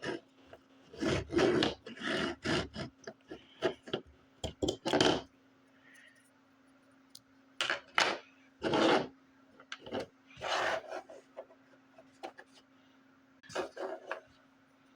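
Irregular bursts of scraping and rubbing, each well under a second, coming in clusters with quiet gaps between, over a faint steady hum.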